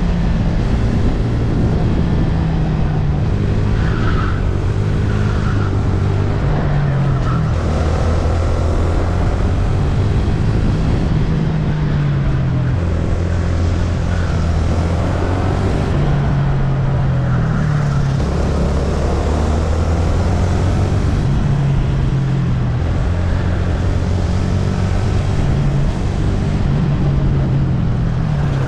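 VT250 rental go-kart engine recorded onboard, running hard at a constant high level. The engine note climbs and drops every few seconds as the kart accelerates down the straights and lifts off into the corners.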